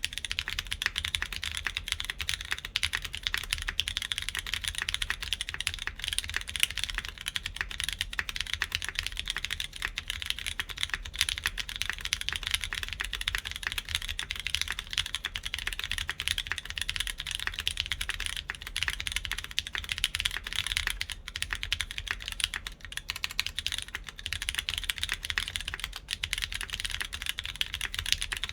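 Continuous fast typing on a Geonworks F1-8X V2 mechanical keyboard with lubed Cherry MX Brown tactile switches on a full aluminium plate, under SWG beige keycaps. The key strokes run together in a dense, even stream of clicks, with no pauses.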